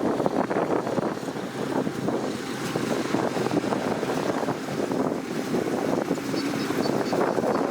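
Kubota DC-105X combine harvester running steadily, its diesel engine and threshing machinery giving a dense rumble with a fast rattle.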